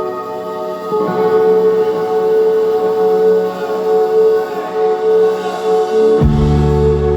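Live band playing a song's instrumental intro: sustained, ringing guitar chords that change about a second in, with bass coming in heavily about six seconds in.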